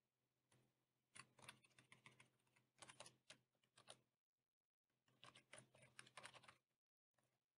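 Faint typing on a computer keyboard: quick runs of key clicks in two bursts, the first starting about a second in and the second a little past the middle.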